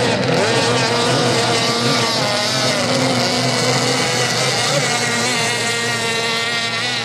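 Two-stroke racing outboard engines of small race boats running at full throttle, several engines overlapping at different pitches that waver as the boats pass.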